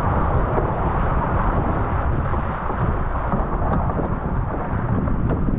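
Force 4–5 wind buffeting the microphone in a steady low rush, the typical noise of a camera on a dinghy sailing hard in strong wind.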